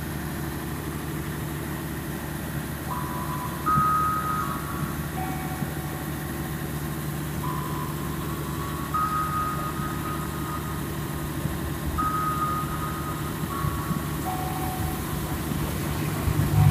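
Diesel-electric CC 206 locomotive engines running with a steady drone as a train pulls into the platform. From about three seconds in, a slow tune of single beep-like tones at changing pitches plays over it.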